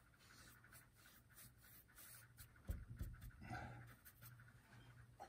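Paintbrush scrubbing fairly dry oil paint onto a linen panel: faint, irregular scratchy strokes over a low steady hum. A soft thump comes about three seconds in.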